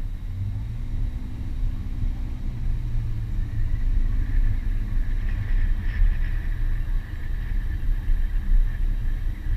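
A 2001 Subaru Forester's 2.5-litre flat-four engine running under way as the car drives over sand and dirt, heard from outside the driver's window as a steady low rumble. A fainter, higher steady hum joins about halfway through.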